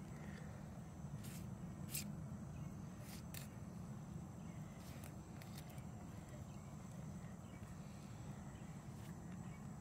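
Faint outdoor background of steady high-pitched insect chirring over a low steady hum. A handful of sharp small clicks, the loudest about two seconds in, come from the knife and hands working the rabbit carcass.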